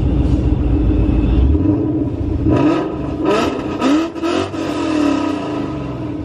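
Coyote-swapped Mustang's 5.0 L V8 idling through a Corsa Extreme exhaust, then revved in several quick blips about two and a half seconds in, the revs falling back toward idle. Heard from inside the car.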